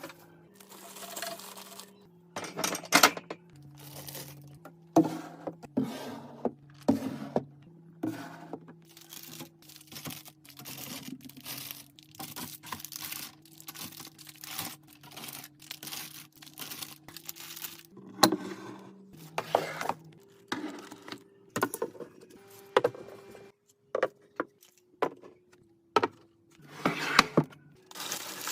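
Household products and packaging being handled and restocked: irregular crinkling and tearing of packaging with light knocks and clinks as items are set down. Underneath runs a faint, slow melody of held low notes.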